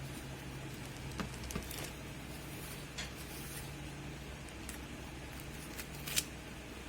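A few light clicks and taps of small parts being handled, the loudest near the end, over a steady low hum.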